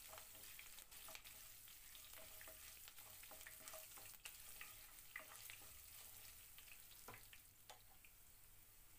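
Faint sizzling of dals, mustard seeds, ginger and green chilli frying in a little oil in a non-stick pan, with a wooden spatula stirring and scraping through it and scattered small crackles.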